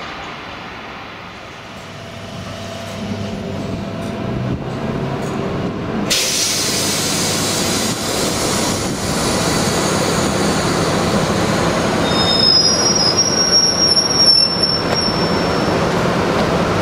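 Class 90 electric locomotive and its train drawing slowly into the platform, with a steady rumble of wheels and traction equipment. Short high-pitched wheel squeals come about two-thirds of the way through.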